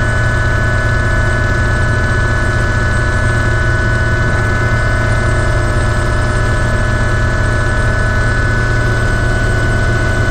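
Ultrasport 555 turbine helicopter in flight, heard from inside the cabin: a steady turbine whine of several high tones over a loud low rotor and transmission hum.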